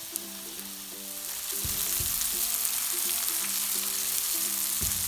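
Hamburger patties sizzling on a Blackstone 1650 flat-top griddle. The sizzle grows louder about a second and a half in, then holds steady.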